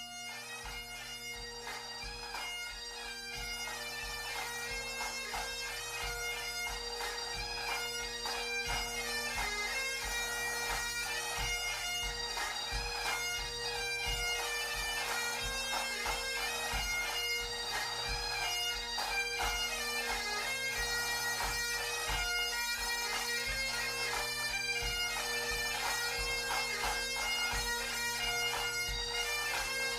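Bagpipe music: a steady drone held underneath a chanter melody, swelling in over the first several seconds.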